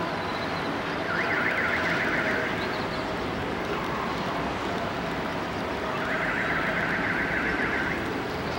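An electronic alarm sounds in two bursts of a fast-pulsing, warbling tone, each about a second and a half long: one about a second in and one about six seconds in. Under both runs a steady street hum.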